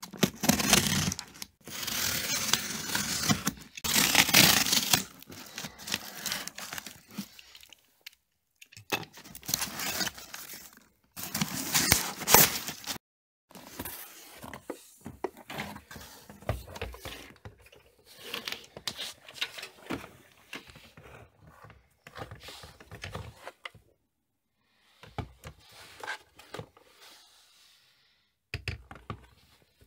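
A cardboard box being torn open, with several loud ripping bursts over the first dozen seconds. After that comes quieter rustling and handling as the contents are lifted out.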